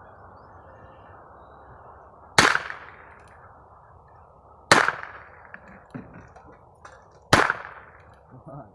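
Three shots from a Heritage Rough Rider .22 rimfire single-action revolver, about two and a half seconds apart, each ringing off with a short echo.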